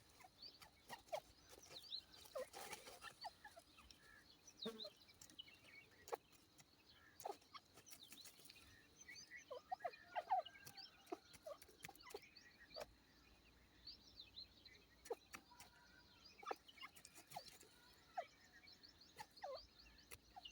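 Grey francolins making faint, short call notes and clicks, scattered irregularly, with a few clearer little notes around the middle and near the end; no loud calls.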